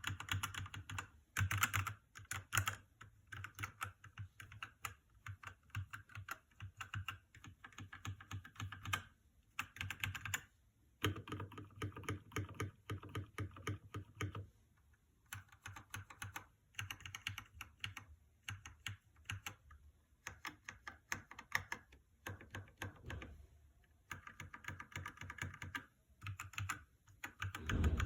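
Mechanical keyboard with Red (linear) switches being typed on in quick bursts of key clicks, with short pauses between runs.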